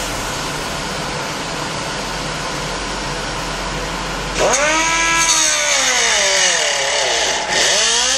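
Pneumatic die grinder with a cut-off wheel running with a steady hiss, then about four seconds in the wheel bites into the battery's plastic latch: a loud whine that sags in pitch as the grinder bogs under load and climbs back near the end, over a harsh high grinding.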